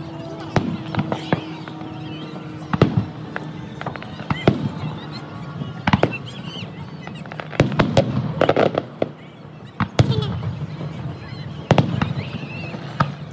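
Aerial firework shells bursting in the sky: a dozen or so sharp bangs at irregular intervals, several coming in quick succession around the middle and again near the end.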